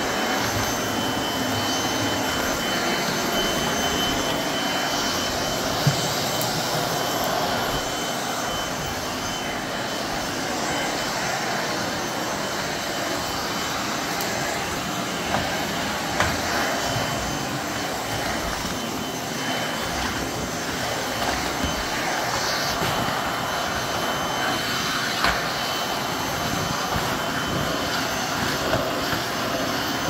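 Bagless canister vacuum cleaner running steadily, its floor brush being pushed over a hardwood floor, with a few brief knocks along the way.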